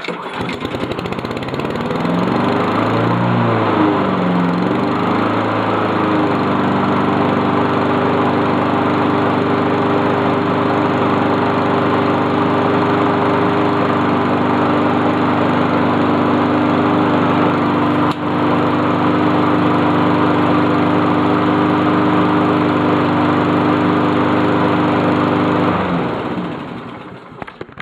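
Honda walk-behind lawn mower's single-cylinder engine on a cold start just after reassembly: it catches and its speed wavers for the first few seconds, then settles into a steady run. Near the end it is shut off and winds down.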